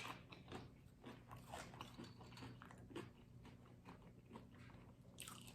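Faint close-miked chewing of a buffalo chicken quesadilla: soft crunching and small wet mouth clicks, with a sharper bite click at the very start.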